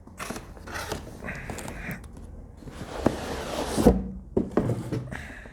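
Cardboard packaging being handled: short scrapes and a longer sliding rasp as the laptop box is pulled from its outer packaging, ending in a thump about four seconds in.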